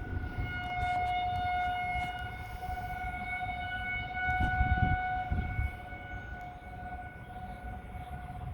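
Federal Signal 2001-DC rotating outdoor warning sirens sounding a steady tone during their monthly test, the level swelling and fading as the sirens rotate. A low rumble comes in about halfway through.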